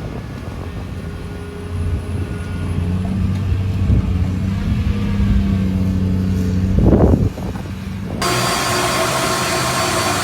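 An engine running with a steady low hum that grows louder, and a short loud burst near the middle. It switches suddenly to a steady hiss with a few held tones near the end.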